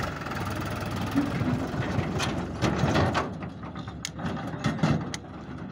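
Powertrac tractor's diesel engine pulling a trailer away over rough dirt, with the trailer's metal rattling and clanking and growing fainter near the end.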